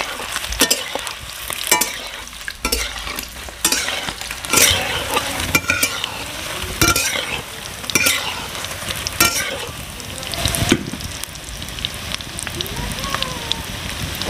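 Whole boiled eggs sizzling in hot oil in an aluminium kadhai as they brown, with a steel spatula scraping and clinking against the pan roughly once a second as they are turned.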